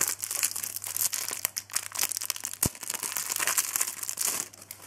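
Foil trading-card packet crinkling as it is handled and torn open, a dense crackle that eases off near the end. A single low knock about two and a half seconds in.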